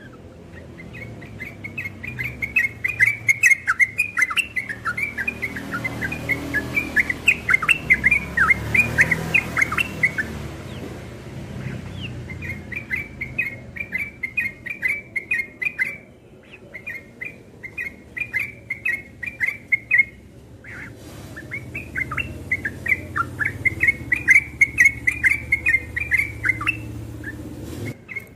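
Yellow-vented bulbul singing long runs of rapid chattering notes in the fast, continuous 'ropel' style, in four bursts with short breaks about eleven, sixteen and twenty seconds in. A faint low rumble runs underneath.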